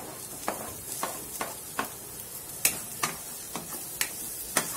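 Diced carrot, sweet corn and green capsicum sizzling in hot oil in a frying pan, while a spatula stirs them and knocks and scrapes against the pan: sharp clicks about twice a second, unevenly spaced, over a steady frying hiss.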